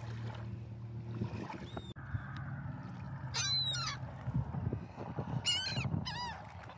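Birds calling outdoors: two short bursts of rapid, repeated high cries, about halfway through and again near the end, over a low rumbling background. A low steady hum fills the first two seconds and cuts off abruptly.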